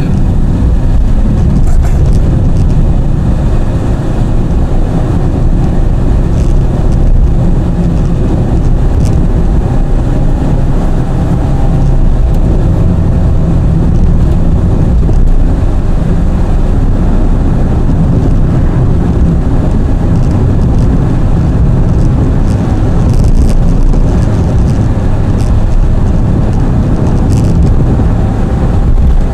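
Car driving along the road: a steady, loud low rumble of engine and road noise.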